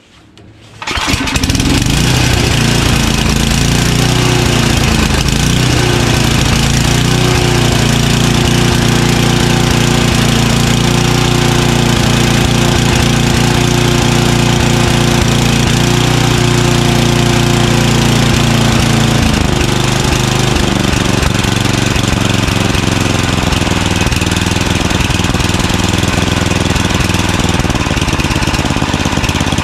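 A Craftsman snowblower's 9 hp Tecumseh single-cylinder engine catches on a recoil pull about a second in and runs. Its pitch wavers for a few seconds after starting, then holds steady. This is a test run after a carburetor cleaning to see whether it still surges. About two-thirds of the way through, the engine note shifts and turns rougher.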